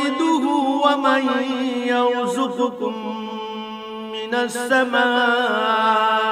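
A man reciting the Quran in Arabic in a melodic, drawn-out tajweed style, holding long notes. The pitch steps down about two seconds in.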